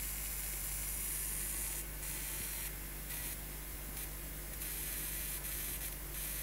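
Spark gap between relay contacts sizzling as it fires continuously from a camera-flash high-voltage circuit, the hiss cutting out briefly several times from about two seconds in.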